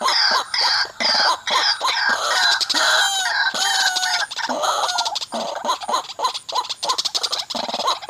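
White-breasted waterhens calling: a loud run of repeated 'wak' notes, about two a second at first, quickening to a faster string of shorter notes about halfway through.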